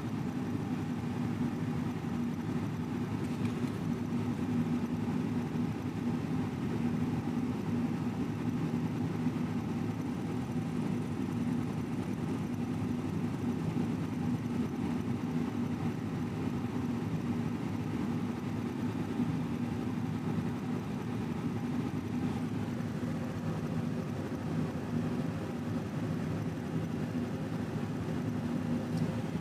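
Steady low background hum with a constant pitched drone, unchanging throughout.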